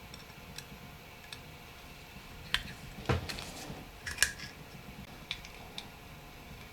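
Small hard plastic and metal parts being handled on a work surface: scattered light clicks and taps, with three louder knocks around the middle.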